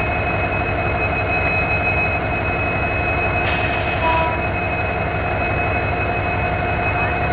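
WDP-4D diesel-electric locomotive's EMD two-stroke engine running close up with a steady drone and whine as the loco eases up to couple onto the coaches. A short burst of air hiss comes about three and a half seconds in.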